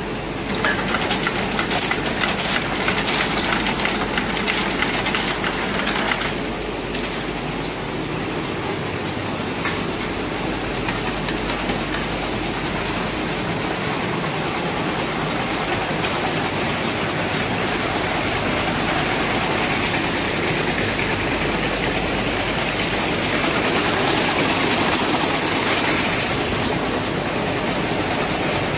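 Woolen mill machinery, carding and spinning machines, running with a steady mechanical din. Dense fast clicking for the first several seconds.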